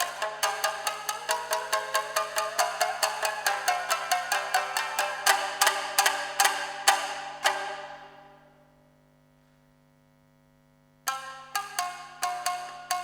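Tsugaru shamisen ensemble playing fast, driving plucked strokes, about four a second, each with a sharp percussive attack, and a few heavier accented strikes after about five seconds. The last notes ring out and die away into a pause of about two seconds, then the playing comes back in sharply near the end.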